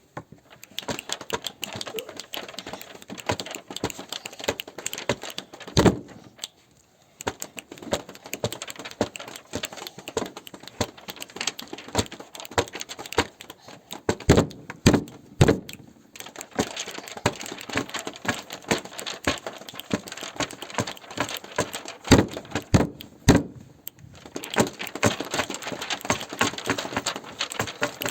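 Dense, irregular tapping and clicking on hard classroom objects, with a few louder knocks in between: hand-made sound effects imitating nature sounds.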